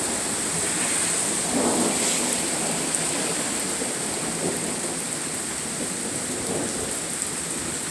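Steady rain falling during a thunderstorm, with thunder rumbling in, loudest about a second and a half in and weaker swells later.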